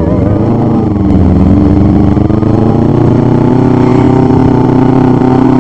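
An automatic scooter's engine runs steadily while riding, its note rising slowly as it gathers speed.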